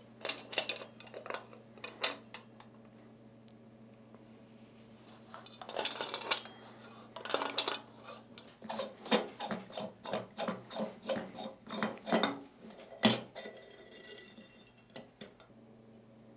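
Metal clicks, clinks and scrapes of groove-joint pliers working the steel collar of a Kinetic Water Ram's air pump cylinder as it is unscrewed, with a run of clicks about twice a second in the middle and a sharper click near the end. The long metal cylinder then slides out with a faint scrape.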